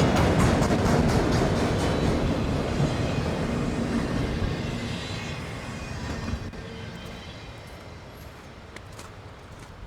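Freight train cars rolling past, wheels clicking over rail joints at first. Then the rumble fades steadily over several seconds as the train moves away.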